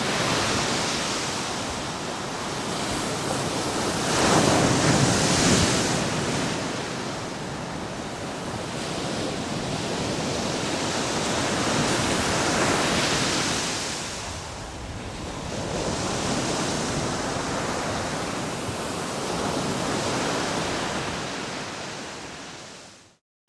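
Ocean surf breaking, a steady rush of noise that swells and recedes with the waves, the loudest swell about five seconds in. It cuts off suddenly near the end.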